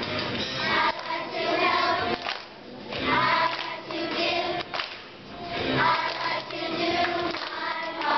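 A choir of third-grade children singing together, in sung phrases with short breaks about two and a half and five seconds in.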